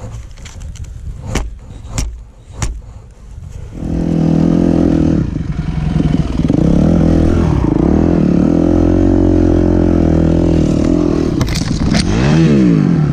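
Yamaha YZ250F four-stroke single-cylinder dirt bike engine: a few knocks first, then about four seconds in the engine is revved up and held at steady high revs for several seconds. Near the end the revs drop and climb again.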